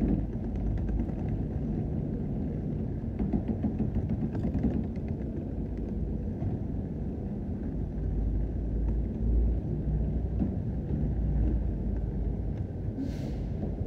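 Hard wheels of a rolling suitcase and a wheeled bag rumbling steadily over rough wet concrete pavement, with low vehicle rumble around them. A brief hiss comes near the end.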